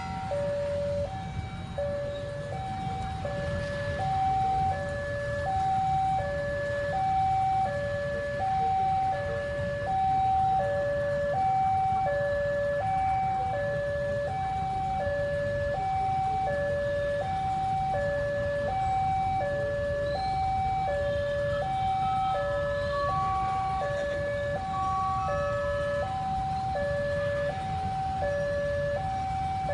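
Railroad level-crossing warning alarm sounding, two electronic tones alternating high and low in a steady repeating rhythm, which signals that a train is approaching. A low rumble of road traffic sits underneath.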